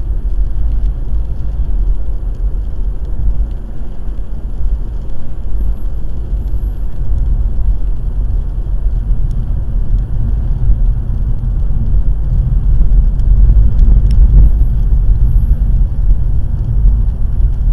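Steady road and engine noise of a car driving at about 45 mph on a rain-wet road, heard from inside the cabin; the low rumble grows somewhat louder in the second half.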